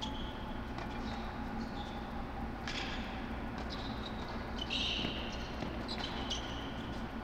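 Tennis rally: racquets striking the ball every couple of seconds, with short high squeaks of shoes on the hard court, over a steady low hum.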